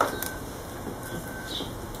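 House sparrows feeding at a plastic tube seed feeder: two sharp clicks at the start, then faint short chirps, over a low steady background rumble.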